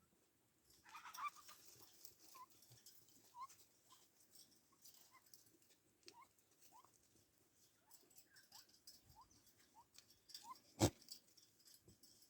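Faint, short rising chirps from a small animal, repeated roughly once a second, with scattered light clicks and one sharp click near the end.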